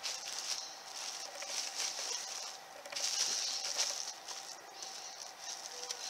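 Clear plastic bag crinkling and rustling as it is pulled off a fridge cabinet, in uneven bursts, the loudest about three seconds in.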